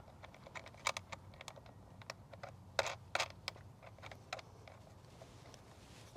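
Irregular small clicks and taps of hand tools and battery cable terminals being handled during wiring, with a cluster of louder clicks about three seconds in.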